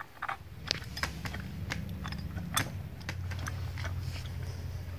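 Irregular metallic clicks, two or three a second, from a ratchet wrench and steel parts as the radius-arm bolts are tightened to draw the bushings into the front axle. A low steady hum runs underneath and grows a little about three seconds in.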